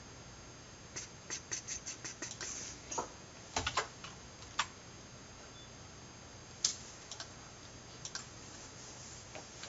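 Faint computer keyboard keystrokes while code is being edited: a quick run of taps in the first few seconds, then scattered single keypresses.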